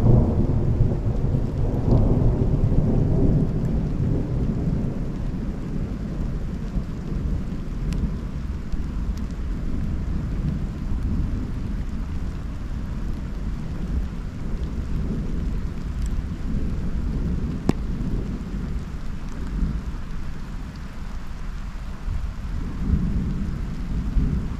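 Thunder rolling in a long low rumble, loudest in the first few seconds and swelling again near the end, over steady rain with a few sharp ticks of drops.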